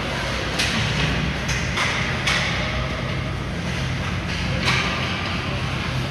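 Ice hockey play on a rink: sharp clacks of sticks and puck, about five over a few seconds, over a steady low hum from the arena.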